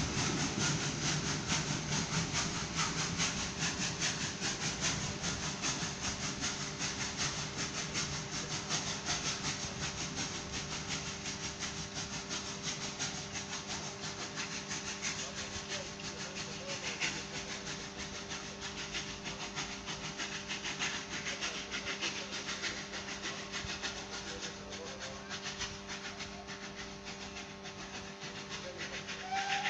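Passenger train hauled by an Ol49 steam locomotive pulling away down the line, its rumble and hiss fading gradually as it goes, over a steady hum.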